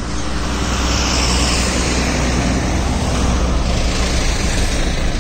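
Heavily loaded multi-axle lorry passing close by, its diesel engine a steady low drone over loud tyre and road hiss.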